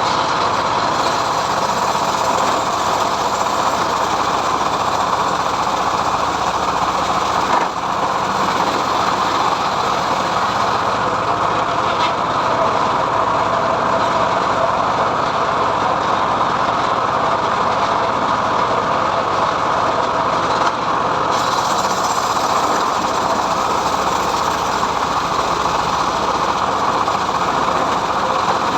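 Homemade engine-driven srekel sawmill running steadily while ripping a mahogany log, with a brief dip in the noise about eight seconds in.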